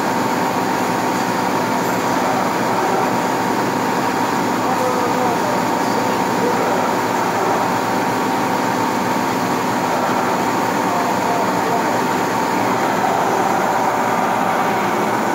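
Metal lathe running and turning a workpiece under flood coolant: a steady machine noise with a constant high whine.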